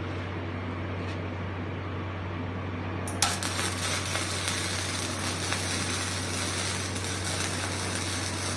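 Gasless flux-cored welding machine humming, then about three seconds in the arc strikes with a sharp crack and runs on as a steady crackling sizzle while a fillet weld is laid.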